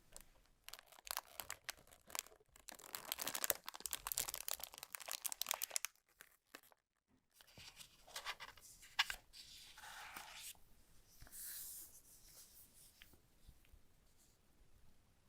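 Keyboard packaging being torn and crinkled by hand, in dense crackling stretches for about the first six seconds, then a short pause, softer rustles and a sharp click about nine seconds in.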